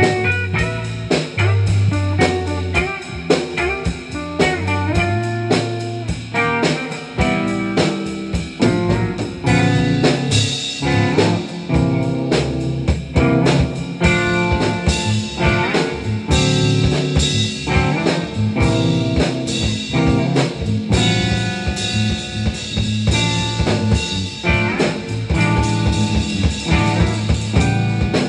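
Improvised instrumental jam by a guitar, bass and drum kit trio: guitar lines over low bass notes and a steady beat of drum hits.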